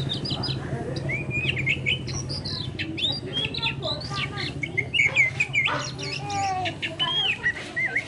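Oriental magpie-robin singing: a quick, varied run of short chirps and whistled notes that bend up and down, over a low steady hum.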